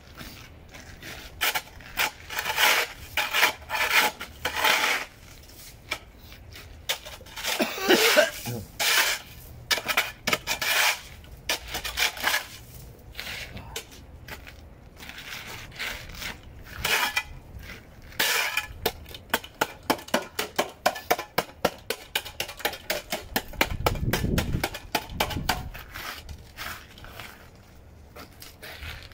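Snow shovel blade scraping and chipping at ice on pavement in repeated strokes, with a quick run of short, sharp strikes partway through.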